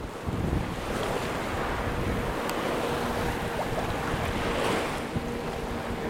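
Shallow sea water washing and small waves breaking, with wind buffeting the microphone.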